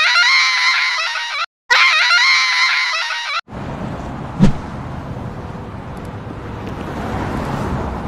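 Two blasts of a bus horn, electronically altered so that only a thin, high-pitched tone is left, each about a second and a half long. After them comes a steady hiss with a single click about a second in.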